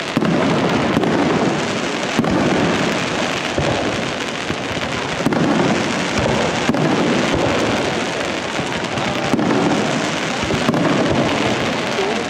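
Aerial fireworks of a Valencian castillo display: shells bursting in a dense, continuous crackle, with sharper bangs standing out every second or two.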